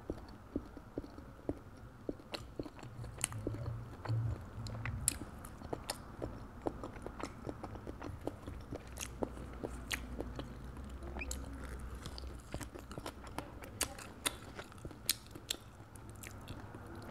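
Close-up chewing of balut, a boiled fertilised duck egg, with many small sharp clicks and crackles scattered throughout.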